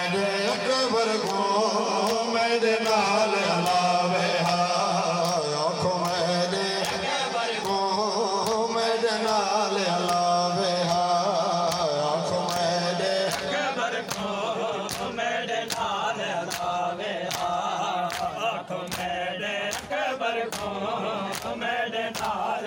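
Male voice chanting a noha through a microphone and loudspeaker, with a crowd of men beating their chests (matam) in time, about two slaps a second. The slaps become plainer about two-thirds of the way through.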